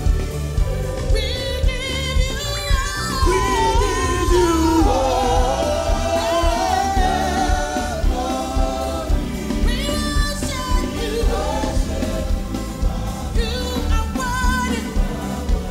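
Live gospel praise music: a group of singers on microphones singing with a band, over a strong bass line and a steady beat.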